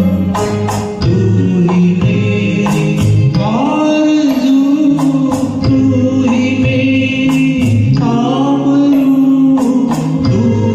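A man singing a Hindi song with long held, wavering notes and slides between pitches, over an instrumental accompaniment with a steady percussion beat.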